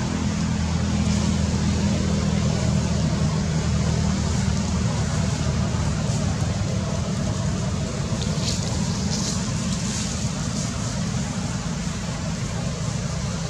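A motor vehicle's engine running steadily nearby, a low even hum.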